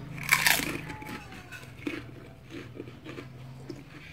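A bite into a crispy fried wonton (pangsit) gives a loud crunch about half a second in. A few quieter crunches follow as it is chewed.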